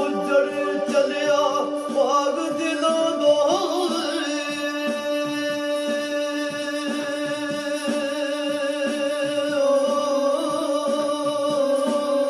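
A man singing a long, wavering held note in Pothwari folk style over steady instrumental backing.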